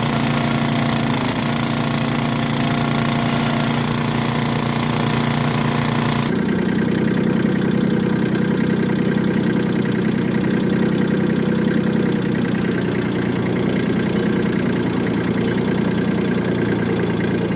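An engine running steadily at idle. About six seconds in, the sound changes abruptly: the high part drops away and a lower, steady running goes on.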